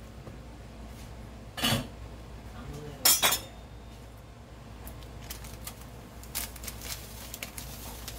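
Stainless steel pot lid clanking twice as it is lifted off the pot and set aside, the second clank the louder, followed by a few faint small ticks.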